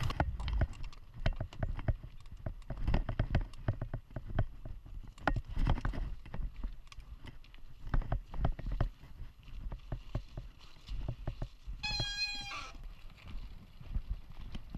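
Mountain bike clattering over a rough dirt trail: many irregular knocks and rattles over a low rumble. A short high-pitched squeal about twelve seconds in.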